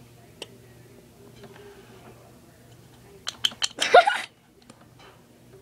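Faint clicks from makeup pencils handled close to the microphone over a low steady hum, then a quick run of sharp clicks and a short loud burst with a rising tone about four seconds in.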